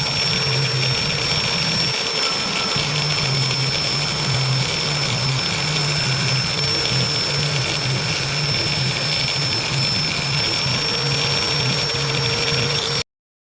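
Electric power tool running steadily: a loud even noise with a constant high whine and a low hum, which cuts off abruptly near the end.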